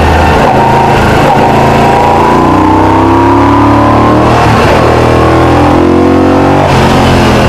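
Moto Guzzi V10 Centauro's transverse V-twin engine pulling the motorcycle along, heard from on board. Its pitch climbs slowly, drops sharply twice in the second half and climbs again each time, over a steady rush of wind.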